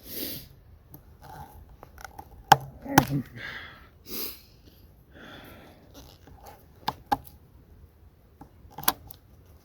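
Pliers working at a threaded metal piece embedded in a pine log: several sharp metal clicks and scrapes, the loudest about two and a half and three seconds in, with soft hisses between them.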